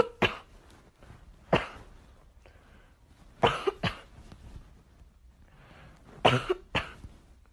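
Boston terrier giving short, sharp cough-like huffs, six in all: two single ones, then two quick pairs a few seconds apart.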